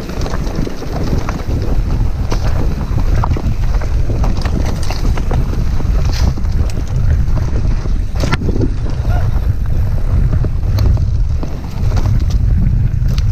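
Wind buffeting the microphone of a camera on a Polygon Siskiu mountain bike riding down a dirt trail, a heavy steady rumble. Tyres roll over the dirt, and the bike gives scattered sharp rattles and knocks over the bumps.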